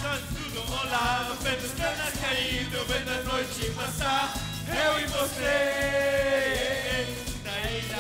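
A male vocal duo singing into microphones through a PA over a backing track with a steady bass line. The voice holds one long note in the second half before the melody moves on.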